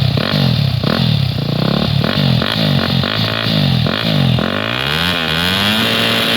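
Motocross bike engine revved in quick repeated throttle blips, about two a second. Near the end it climbs once more and holds a steady higher rev.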